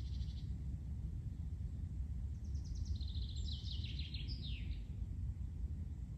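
A songbird singing one quick trilled phrase that falls in pitch and ends in a short flourish, over a steady low outdoor rumble. A short buzzy call sounds right at the start.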